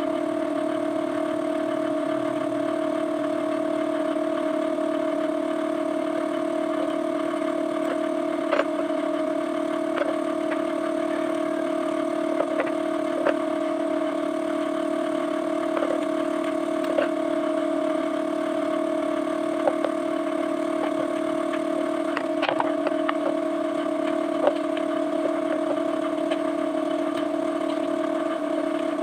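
A steady machine hum with two even tones, under scattered light clinks and taps of metal as a router bit and its collet are handled and tightened with a small wrench.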